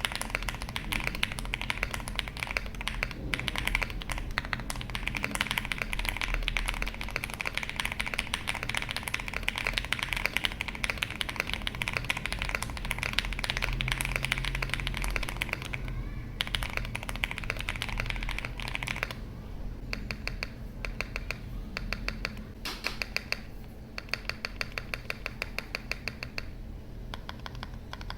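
Typing on an Owlab Mr Suit mechanical keyboard with Owlab Neon switches on a POM plate, MW02 PBT keycaps and full foam. It starts as fast, continuous keystrokes, then from about two-thirds of the way in turns to slower, evenly spaced clacks. The builder says loose keycap stems make a few keys sound clacky.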